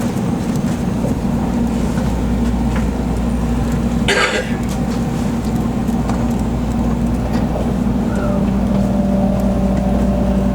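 Running noise inside the cabin of an N700-series 7000/8000 Shinkansen: a steady low rumble and hum. There is a brief hiss about four seconds in, and a steady higher hum joins about eight seconds in.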